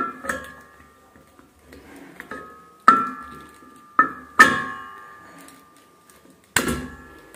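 Metal clinking on an LPG cylinder's brass valve and steel body: about six sharp knocks spread unevenly, each leaving a short, fading metallic ring.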